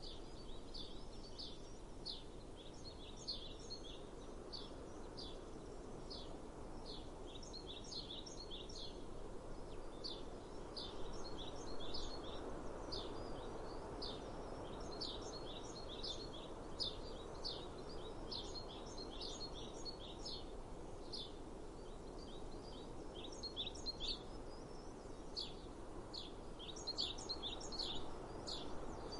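Small birds chirping in many quick, short, high notes, sometimes in clusters, over a steady background rush of open-air breeze.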